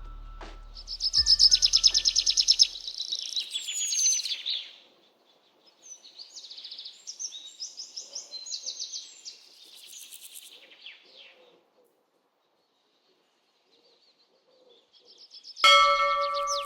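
Small birds calling: fast, loud, high trills and chirps for the first few seconds, then softer scattered chirps, then a few seconds of near silence. Near the end, music with steady held tones starts suddenly.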